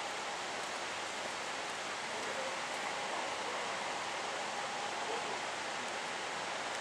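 Steady, even hiss of outdoor background noise, with no distinct engine or track sounds.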